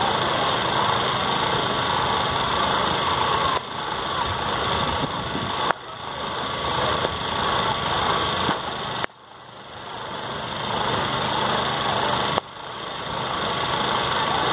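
Steady rushing, engine-like noise, broken a few times by a sharp knock of a cricket bat striking the ball. After each break the noise suddenly drops away and swells back over a second or two.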